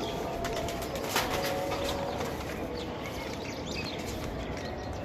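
Pigeons cooing, with some higher chirps and a few sharp clicks, the loudest about a second in.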